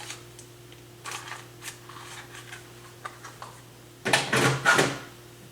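Small parts being rummaged through by hand while searching for a tiny miniature lamp: scattered light clicks and rustles, with a louder burst of rattling about four seconds in.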